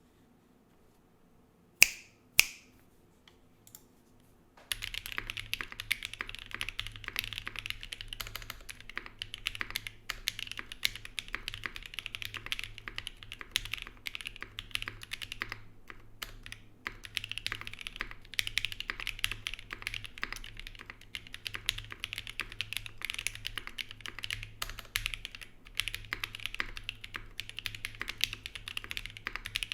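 Typing on a Zoom75 SE mechanical keyboard with KTT Strawberry V2 linear switches, GMK keycaps and an unfoamed, gasket-mounted carbon fibre plate: continuous keystrokes from about five seconds in. Before the typing, two sharp clicks come about two seconds in.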